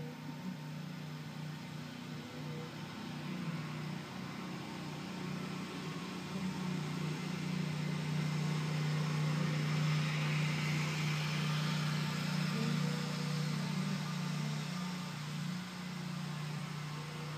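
A low, steady motor hum that swells for several seconds in the middle and eases off near the end.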